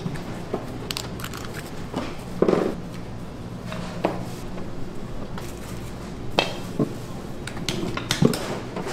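Scattered clinks and knocks of metal kitchen utensils, bowls and trays, a handful of sharp separate strikes, over a steady low machine hum.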